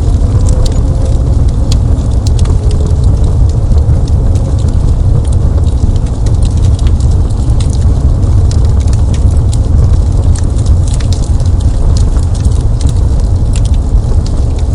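Fireplace fire burning: a steady low rumble of flames with irregular sharp crackles and pops scattered throughout.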